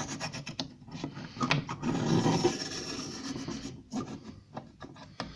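Scribing dividers drawn along an MDF window board to mark the cut line: scraping and rubbing strokes over the board, then a few light knocks and clicks near the end.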